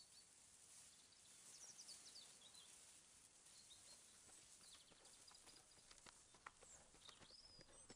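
Near silence: faint outdoor ambience with a few high chirps, then a run of light taps in the second half.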